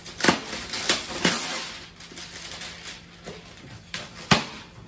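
Handling noise from a BB gun being lifted out of its packaging: a few sharp knocks and clacks in the first second and a half and one more near the end, with packaging rustling between them.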